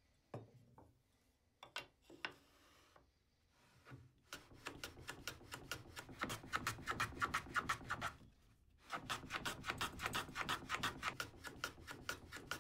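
Hand plane shooting the mitered end of a mahogany strip on a shooting board, truing it to 45 degrees. A few scattered knocks come first, then a fast, even run of shaving strokes with a short break about eight and a half seconds in.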